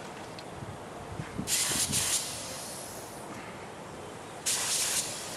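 Two short bursts of hiss from a pressure-pot spray gun spraying thinned primer in quick test passes, about a second and a half in and again near the end.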